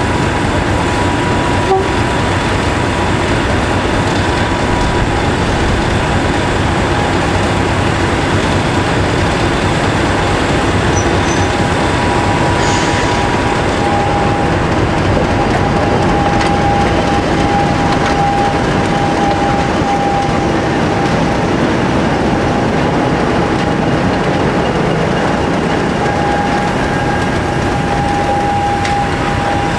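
A pair of English Electric Class 50 diesel-electric locomotives, with 16-cylinder engines, running loud and steady as they arrive, with a faint steady whine above the engine noise.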